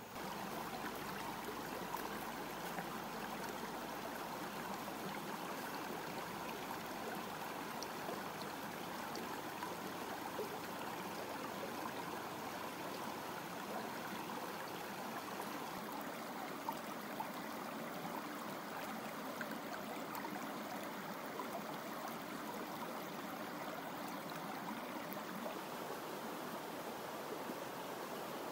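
Shallow rocky stream running and babbling over stones, a steady rush of water.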